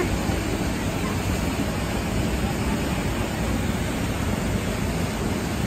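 Steady rushing of river water spilling over a low stepped ledge into a pool.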